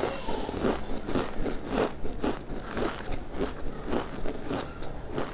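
Close-up crunching of potato chips being chewed, crisp crunches about three times a second.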